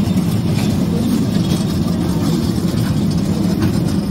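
Small kiddie train ride running around its steel track, making a steady low rumble.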